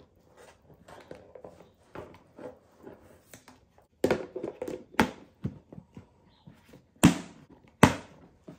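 Chopped chicken scraped off a plastic cutting board into a plastic food container, with light scraping and ticks. Then the container's plastic snap-on lid is set on and pressed down, giving several sharp clicks and knocks in the second half, the loudest near the end.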